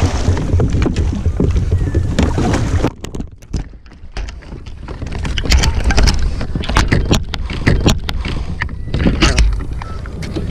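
Water splashing beside a kayak as a hooked yellowtail thrashes at the surface, under a low rumble of wind on the microphone. The sound drops off suddenly about three seconds in. Then come kayak paddle strokes in the water, with repeated knocks and clicks from the kayak.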